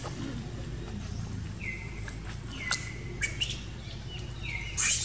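Three short, high whistled animal calls, each dropping in pitch and then held for a moment, with a few light clicks between them over a low steady hum. Near the end a loud burst of rustling and crackling begins.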